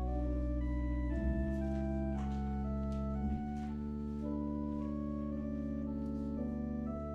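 Organ playing slow, sustained chords over a deep held bass note, the chords shifting every second or two.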